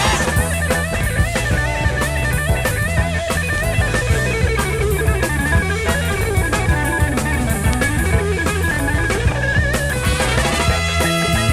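Rock music soundtrack with a steady drum-kit beat and electric guitar lines.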